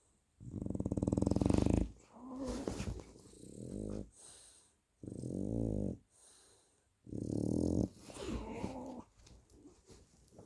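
French bulldog snoring: rattling snores alternating with softer, wheezy, whistling breaths, one every second or two. The longest and loudest snore comes near the start.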